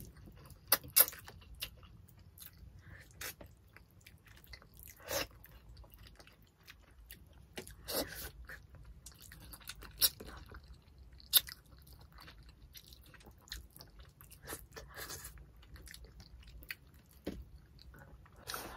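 Close-up eating sounds from two people eating tilapia in coconut milk and rice by hand: chewing, sucking flesh off fish bones and licking fingers, broken by scattered sharp smacks and clicks, the loudest about a second in and around ten and eleven seconds in.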